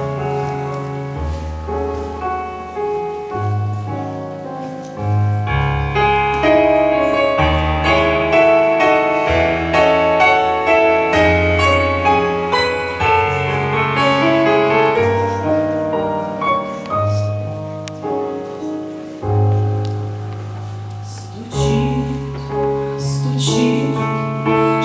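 Keyboard instrumental introduction to a slow hymn: a melody of held notes over sustained bass notes that change every second or two.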